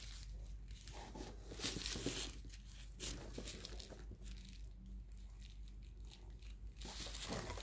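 Paper wrapping around a bundle of candles rustling and crinkling in the hands, a few brief rustles with quiet between them.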